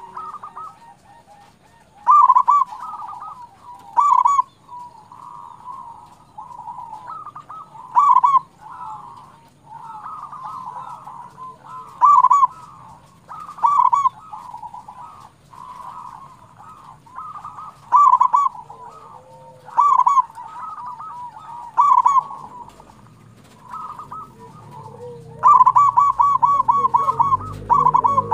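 Zebra dove (perkutut) cooing: loud bursts of quick staccato coos about every two seconds, with softer cooing between them, and a longer fast run of notes near the end.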